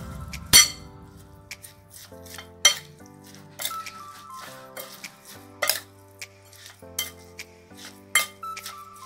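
A metal spoon clinking and scraping against a bowl as minced pork salad is stirred and tossed, with irregular sharp knocks. Soft background music plays underneath.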